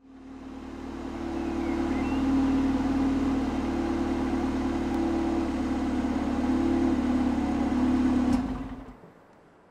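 Car engine idling with a steady hum, fading in over the first couple of seconds, then switched off with a click about eight seconds in, the sound dying away at once.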